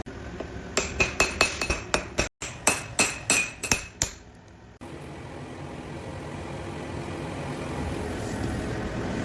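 Hammer striking steel on an anvil in quick succession, about four or five ringing blows a second, during forging of the blade stock. After a cut about five seconds in, a steady rushing noise slowly grows louder.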